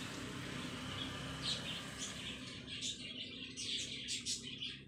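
Small birds chirping in quick, short calls, busiest in the second half.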